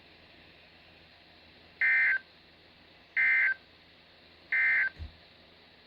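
Three short bursts of Emergency Alert System digital data tones, a buzzy two-tone warble, about 1.4 s apart over faint radio hiss. They are the end-of-message code that closes a weather alert broadcast.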